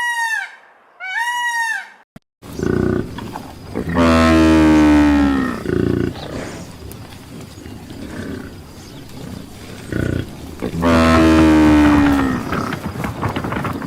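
Buffalo lowing: two long, deep bellows about seven seconds apart, each dropping in pitch as it ends, over outdoor background noise. Before them, in a separate clip that cuts off about two seconds in, come two short high arched calls.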